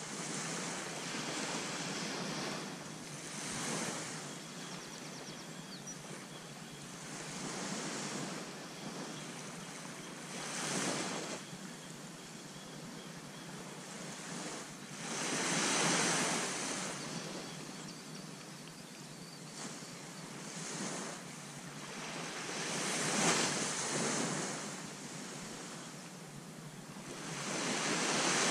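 Waves breaking and washing up a sandy beach, swelling and fading every few seconds, with some wind.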